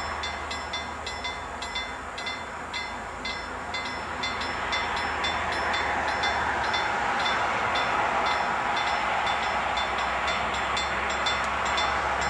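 Freight train rolling past: a steady rushing rumble of wheels on rail, with a quick run of sharp clicks about three a second. It grows louder about five seconds in.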